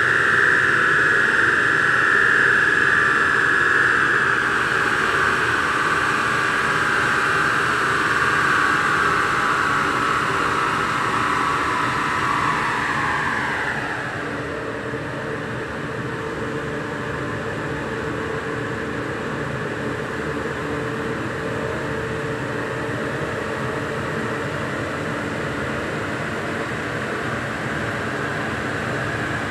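A Rover 2300 running on a rolling road. A high whine from the spinning rollers and drivetrain falls slowly in pitch as the speed runs down, then drops away suddenly about 14 seconds in. A steadier, lower mechanical hum remains after that.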